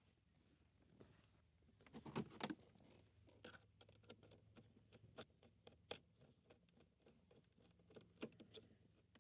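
Faint, scattered clicking and rustling of hands working a cable and small parts, with a few louder clicks about two seconds in.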